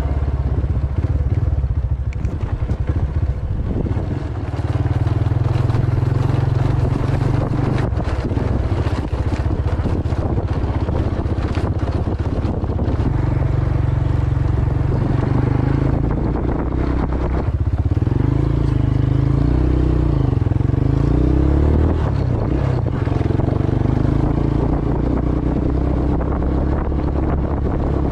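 A small motorboat's engine running steadily, its pitch wavering up and down in the second half, with wind buffeting the microphone.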